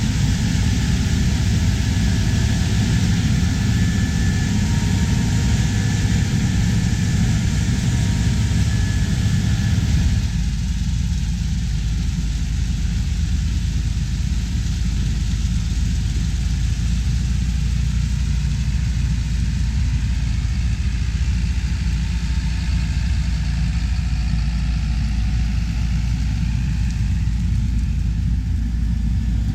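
Heavy farm harvest machinery running steadily with engine noise. About ten seconds in, the sound changes abruptly to a duller, lower mix with less hiss.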